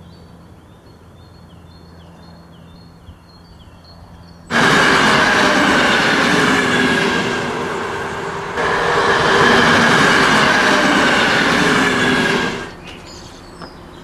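A bird gives a series of short falling chirps over a low hum. About four and a half seconds in, a train passing at a level crossing comes in suddenly and loudly, a rushing rumble with steady ringing tones in it. It dips briefly midway and cuts off abruptly about eight seconds later.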